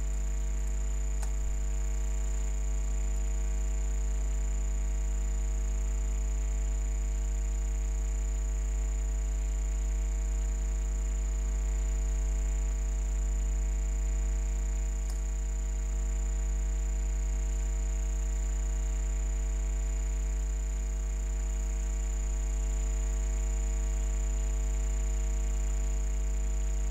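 Steady electrical mains hum picked up in the recording: a low buzzing drone with a thin high whine above it, unchanging throughout.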